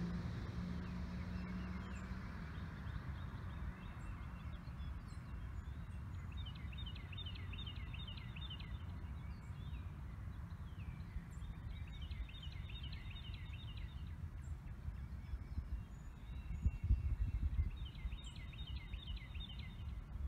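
Outdoor ambience: a bird calling in three runs of quick, high repeated notes several seconds apart, over a low wind rumble on the microphone that swells with a gust about 17 seconds in.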